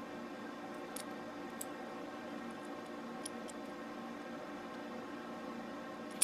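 Steady background hum with a few faint, light ticks, and one sharper click near the end.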